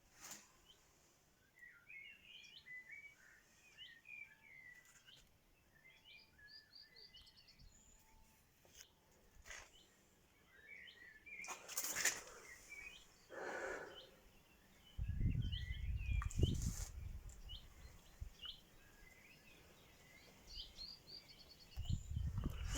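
Small birds chirping and twittering in the background. A couple of brief rushing noises come a little past halfway, and a low rumble lasting about two seconds follows.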